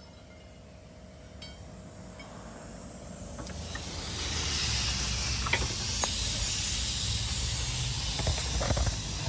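A steady hiss that swells over the first few seconds and then holds, with a low rumble beneath it and a few faint clicks.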